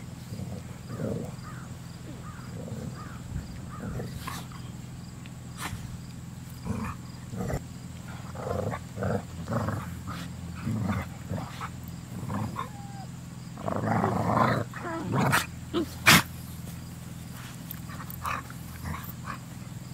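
Two dogs play-fighting, growling and grunting in short irregular bursts, with a longer, louder spell of growling about three-quarters of the way through and a single sharp click just after.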